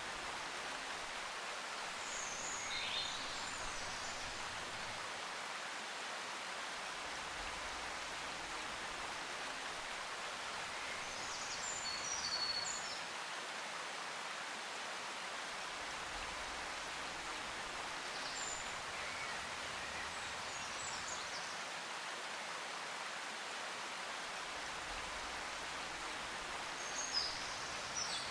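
Steady rushing noise, with brief high bird-like chirps a few times.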